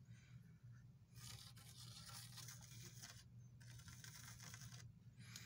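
Near silence: a faint steady low hum, with a faint hiss that comes and goes twice.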